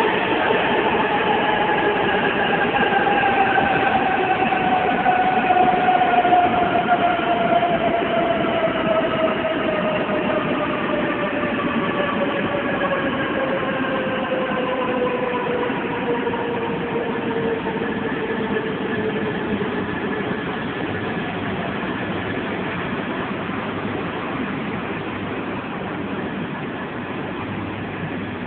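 E2 and E3 series Shinkansen coupled train gliding along the platform as it brakes to a stop, its traction motor whine falling steadily in pitch over a rushing rumble that slowly fades.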